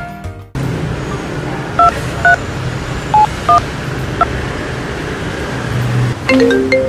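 Mobile phone keypad tones: five short two-tone beeps as a number is dialled, over a steady hiss. Near the end a marimba-like ringtone melody starts.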